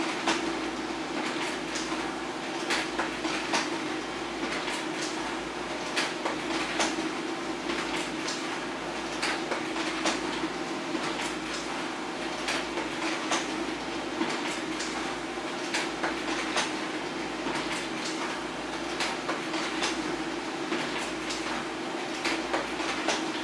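HP LaserJet Pro M402d laser printer running a continuous two-sided print job. It gives a steady hum with short clicks and clacks about once or twice a second as sheets feed, turn through the duplexer and drop into the output tray.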